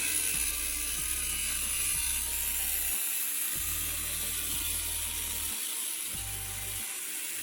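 Angle grinder cutting through the thin metal body of an electric kettle, a steady high-pitched grinding hiss, over background music.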